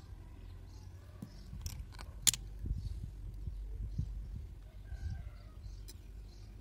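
Small clicks and taps of hands handling copper antenna wire, a metal splitter and pliers, with one sharp click a little over two seconds in. Birds chirp faintly in the background over a low rumble.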